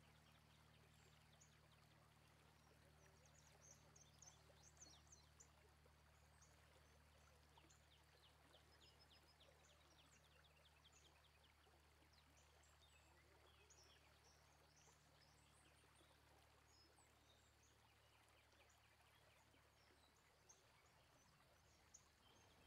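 Near silence: faint outdoor ambience with small birds chirping and trilling now and then.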